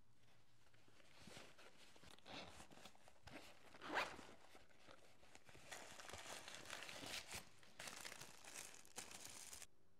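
A fabric pouch's zipper being pulled open, a short zip about four seconds in that is the loudest sound. It is followed by soft, dense rustling and crinkling of tissue paper being unfolded, which cuts off suddenly just before the end.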